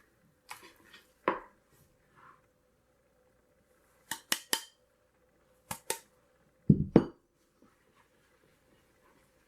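Scattered clinks and knocks of kitchen utensils and bowls being handled: a few sharp clicks, three quick ones about four seconds in, and a louder low knock just before seven seconds.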